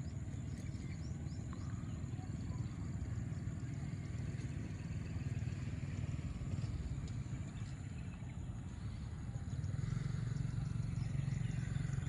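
Open-air field ambience: a steady low rumble with faint scattered high ticking above it, the rumble growing a little stronger near the end.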